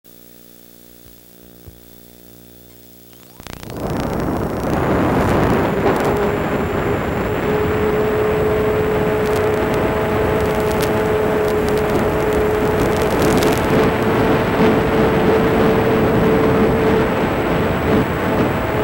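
Model airplane's nose propeller and motor running steadily, heard from the onboard camera, with a steady whine over the noise. It starts suddenly about three and a half seconds in, after a faint low electrical hum.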